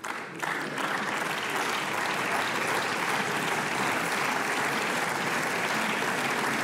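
Applause from members of parliament in a full chamber, starting about half a second in and holding steady.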